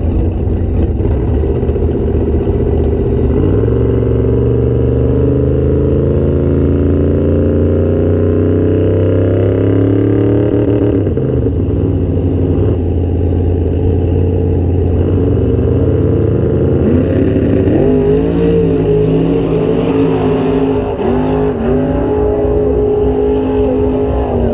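Drag car's engine running loud at the starting line, its revs climbing slowly and then dropping back. Later the revs swing up and down quickly as the car leaves down the strip.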